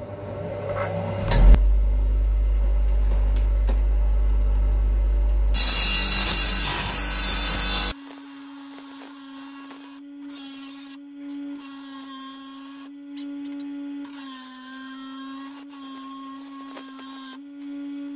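Bench grinder switched on and running with a steady hum while a dull lawnmower blade is sharpened on the wheel, the steel rasping loudly against the stone for a couple of seconds. After an abrupt change in the sound, the grinder runs on with a steady whine as the blade is pressed to the wheel in a series of short grinding passes.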